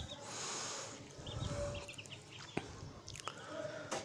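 Young aseel chicks peeping faintly now and then, with a few sharp clicks and a soft hiss in the first second.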